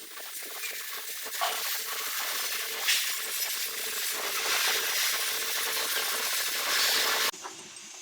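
Stick (SMAW) welding arc on carbon steel pipe, a steady sizzling crackle that cuts off abruptly about seven seconds in.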